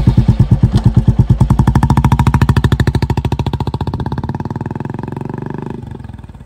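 Royal Enfield Bullet 350's single-cylinder engine thumping through an aftermarket Foldez Indori silencer: a deep, evenly pulsed 'dug dug' exhaust beat. It is loud at first, then quickens a little and fades as the bike pulls away, dropping off sharply near the end.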